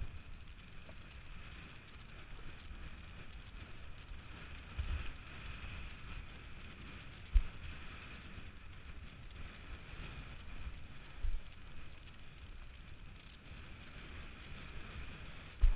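Wind and water rushing past an action camera's microphone on a windsurfer's rig sailing fast through choppy water, with several low thumps, the loudest about seven seconds in.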